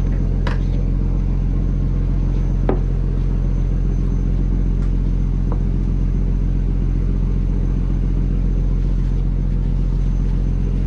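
Fishing trawler's engine running with a steady low drone, with a few short sharp knocks over it, the loudest nearly three seconds in.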